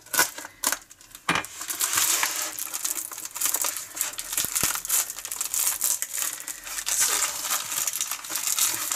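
Plastic mailer bag and packing tape crinkling and tearing as the package is cut open with a craft knife and pulled apart by hand, with a few sharp clicks in the first second or so.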